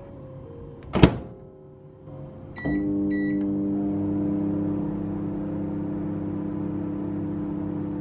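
Microwave oven door shut with a sharp clunk about a second in, two short keypad beeps, then the oven starts and runs with a steady low hum while heating a covered mug.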